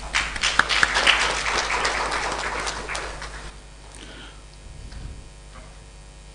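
Audience applauding, a dense patter of clapping that dies away about three and a half seconds in. A steady electrical mains hum runs underneath.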